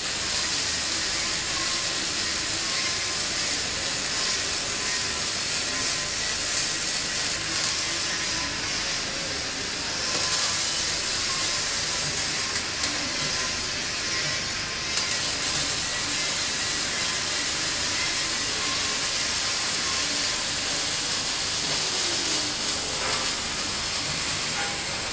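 A robotic MIG welding arc burning steadily on a steel frame, giving a dense, continuous crackle that does not break off.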